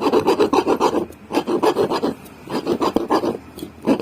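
Quick back-and-forth scraping strokes in four short bursts: a file being rubbed over the armature of a motorcycle self-starter motor to clean carbon dust and marks off it, so the carbon brushes can make proper contact.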